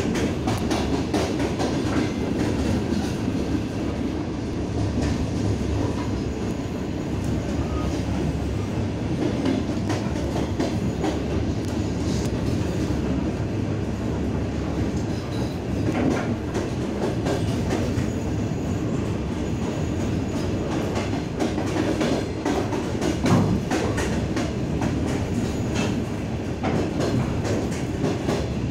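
A moving train heard from inside the carriage: a steady rumble of wheels on the track with frequent clicks as they cross rail joints, a few of them louder.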